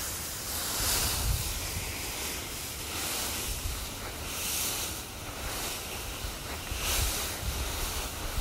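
Dry autumn leaves rustling and crackling in repeated bursts as a dog burrows through a deep leaf pile, with wind rumbling on the microphone.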